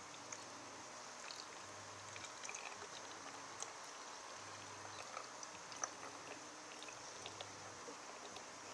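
Faint trickle of liquid draining from an upturned plastic pitcher into the neck of a plastic flask, with scattered small ticks and drips over a steady hiss.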